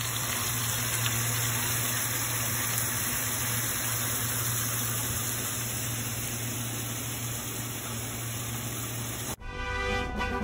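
A steady, even hiss that cuts off suddenly about nine seconds in, after which music with brass instruments comes in.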